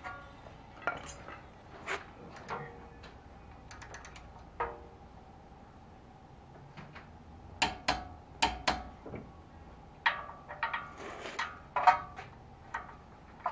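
Steel hand tools clinking against the truck's front suspension parts as the lower ball joint bolts are run in by hand: scattered sharp metallic clinks, which gather into two quick clusters in the second half.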